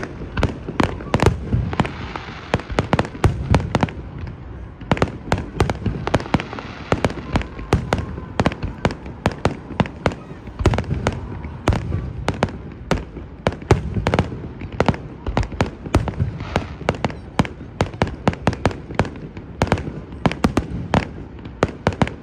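Fireworks going off in rapid succession, a dense run of sharp bangs and crackles several times a second with no break.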